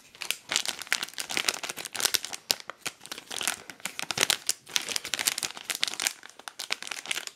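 Foil-lined blind-bag wrapper of a Star Wars Micro Machines pack crinkling and tearing as it is worked open by hand, with many quick irregular crackles.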